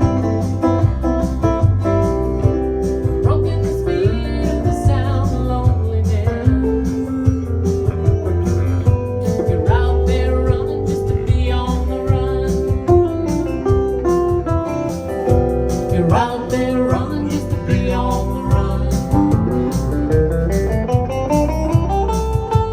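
Instrumental break of a band's song: guitar playing over bass and drums with a steady beat, ending in a rising run of notes.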